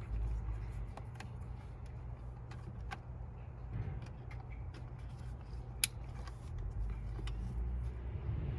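Light clicks and handling of plastic parts as the wiring harness connectors are pushed into the turn signal switch, with one sharper click a little before six seconds, over a steady low hum.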